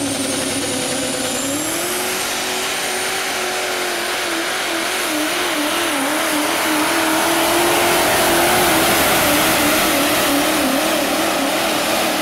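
Super Stock diesel pulling truck's engine running flat out under load as it drags a weight-transfer sled. The engine note steps up about a second and a half in, then wavers rapidly up and down for several seconds over a loud high hiss.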